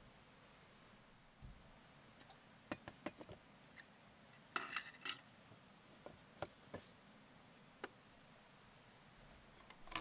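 Light clinks and taps of camp cookware being handled: a titanium mug and a container set down on a hard plastic box lid. A short cluster of bright metallic clinking comes about halfway through, with a few single taps before and after.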